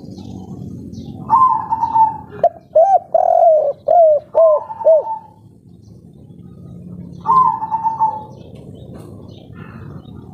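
Spotted dove (tekukur, 'kuk 3' song type) cooing: a drawn-out, slightly falling note, then a quick run of about six short arched coos ending in another long note, and one more long falling note about seven seconds in.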